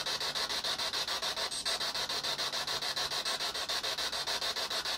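Handheld spirit box (ghost box) sweeping through radio stations: a steady hiss of static chopped into rapid, even pulses.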